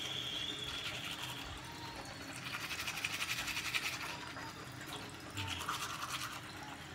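Manual toothbrush scrubbing teeth with quick back-and-forth strokes, in a few spells with short pauses between.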